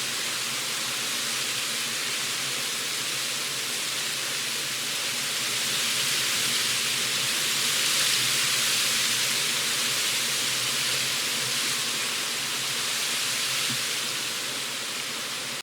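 Autumn breeze: a steady rushing wind that starts abruptly, swells a little about halfway through and eases off toward the end.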